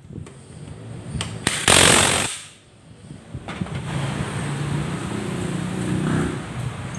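Cordless impact wrench running in one short hammering burst of under a second, about two seconds in, driving a swing arm nut tight, with a couple of short clicks before it. It is followed by a steadier, quieter low drone.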